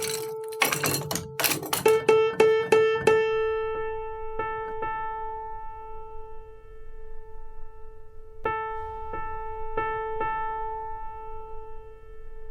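A piano being tuned: a single key struck again and again, a quick run of strikes at first, then a few spaced strikes with the note left ringing and fading between them.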